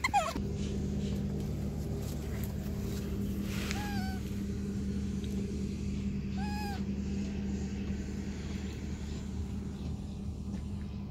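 Baby macaque calls: a short falling squeal at the start, then two brief arched coo calls about four and six and a half seconds in, over a steady low hum.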